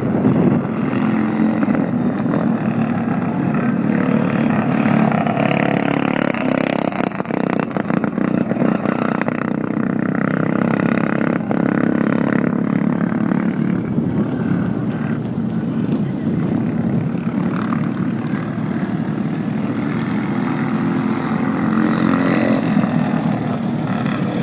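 Racing lawnmower engine running hard at speed, a continuous steady engine note as the mower laps a dirt oval.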